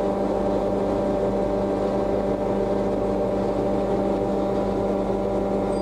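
A steady, unchanging mechanical hum of constant pitch.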